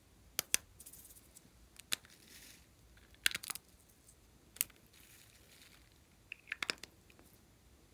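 Sharp clicks and snaps of small plastic makeup cases being handled and pulled open, in short clusters, with faint rustling between.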